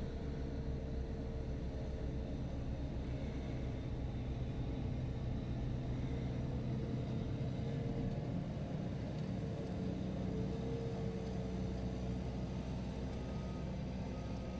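Engine of a tracked sidewalk tractor running steadily under load while its front-mounted snowblower throws snow, with a steady hum. Faint short repeating beeps start near the end.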